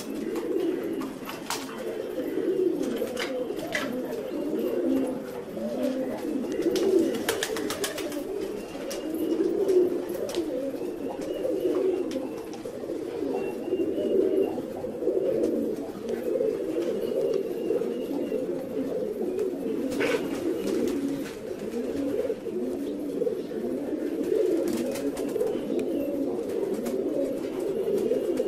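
Many domestic fancy pigeons cooing at once, a continuous, overlapping chorus of low coos. A few sharp clicks cut through it now and then.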